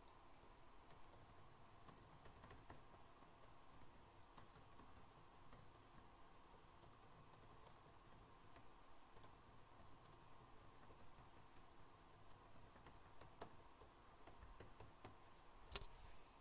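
Near silence broken by scattered faint clicks of a computer keyboard, with one louder click about a second before the end.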